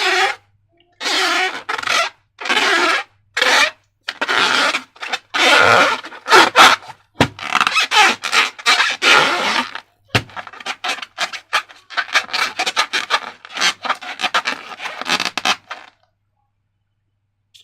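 Short rubbing and scraping strokes, one after another with brief gaps, with a few sharp clicks around the middle; they stop a couple of seconds before the end.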